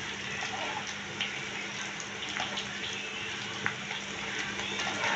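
Pieces of chapati deep-frying in hot oil in a kadai: a steady sizzling and bubbling of the oil with scattered small crackles and pops.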